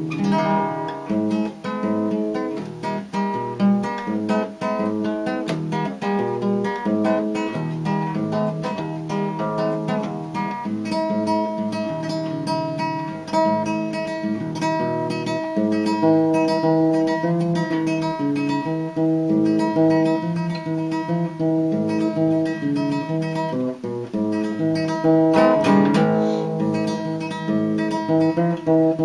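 Nylon-string classical guitar played solo, a busy instrumental passage of plucked notes and strummed chords.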